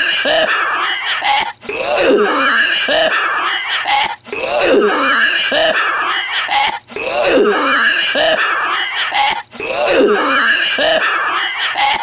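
A man's exaggerated, wheezing smoker's cough: raspy hacking and gasping fits, each broken off by a short pause about every two and a half seconds, the same fit recurring over and over.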